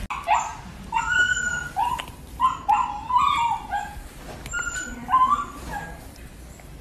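Small puppy whimpering and yipping: a string of short, high-pitched calls that stops about five and a half seconds in.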